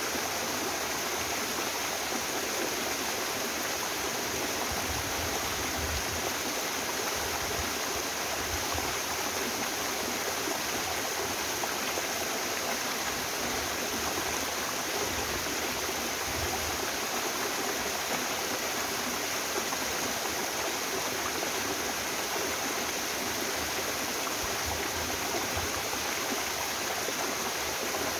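Mountain waterfall and stream pouring with a steady, even rush of water.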